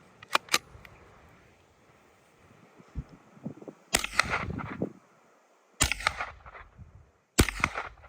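Three gunshots fired about a second and a half to two seconds apart, each followed by a trailing echo. Two fainter sharp cracks come shortly after the start.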